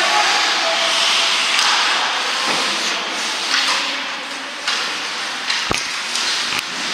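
Youth ice hockey play: a steady hiss of skates scraping the ice, broken by several sharp clacks of sticks and puck, with one louder knock a little before the end.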